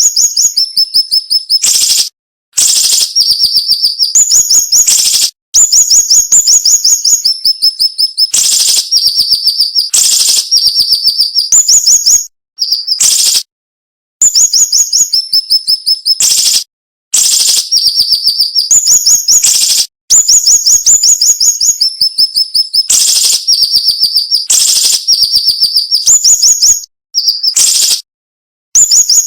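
Siri-siri songbird masteran recording: sharp, rapid trilled phrases of quickly repeated high notes. The phrases last one to three seconds each and are separated by short silent gaps.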